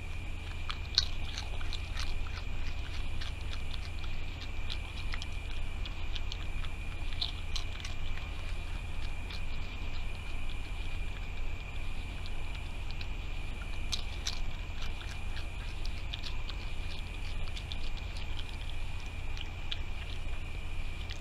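Raccoon chewing and crunching food close to the microphone: irregular small crunches and clicks, with one sharper crack about a second in.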